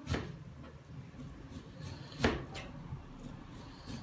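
Two knife chops on a cutting board, sharp knocks about two seconds apart.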